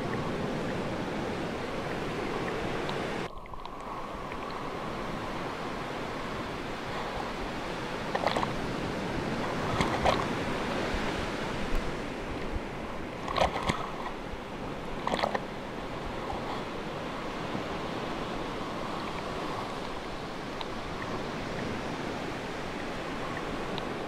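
Ocean waves washing in as a steady surf, with a brief dip in the sound about three seconds in and a few short, louder sounds between about eight and fifteen seconds in.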